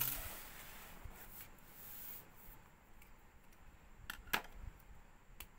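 Paper rustling and sliding as a lined notebook is moved into place on a desk. A couple of sharp clicks follow a little after four seconds in.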